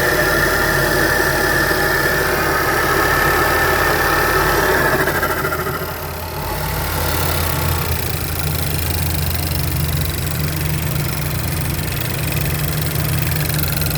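2012 Buick Regal GS engine running at idle, with a clicking noise that the owner cannot place. A busier, higher noise fades out about six seconds in, leaving a steady low hum.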